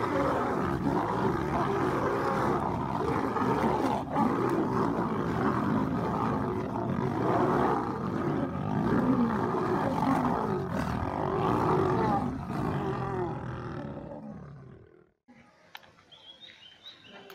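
Lions growling in a fight, a dense, continuous din that dies away about fourteen seconds in, leaving only faint light sounds near the end.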